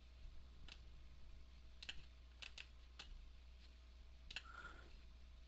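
Faint scattered clicks of a computer mouse and keyboard, about six in all, over a low steady electrical hum, with a brief faint tone about four and a half seconds in.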